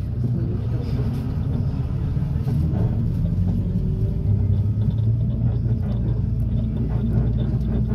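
Minibus engine and road noise heard from inside the cabin while driving: a steady low rumble that grows a little louder about halfway through.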